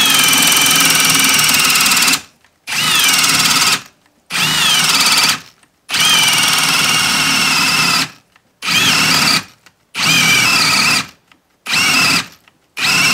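Ryobi P251 brushless hammer drill boring a spade bit into a wooden post in drill mode, speed 2. The drill runs in about eight loud bursts with short dead stops between them. At the start of several bursts the motor whine drops in pitch as the bit bites into the wood.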